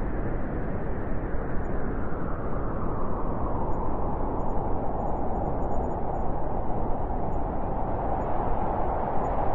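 Blizzard wind blowing steadily, a dense rushing noise with a howling band in the middle pitches that grows stronger a few seconds in.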